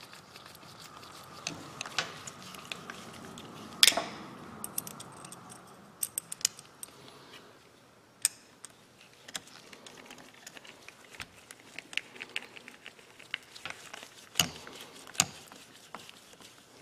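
Scattered small metal clicks and taps of a screwdriver against the steel housing and anvil of an Ingersoll Rand Thunder Gun 1/2-inch air impact wrench being reassembled, with one louder, briefly ringing metal clank about four seconds in.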